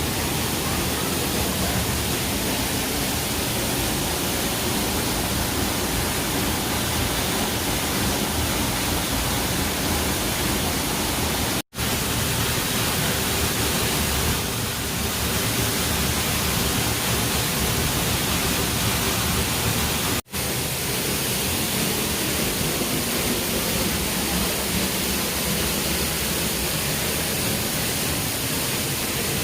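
Steady roar of Ponytail Falls, the water crashing close by, behind the falling water. It breaks off sharply for an instant twice, about twelve and about twenty seconds in.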